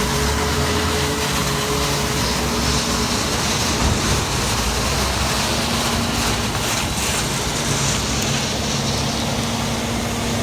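Heavy diesel harvest machinery running steadily, a constant engine hum under a rushing hiss.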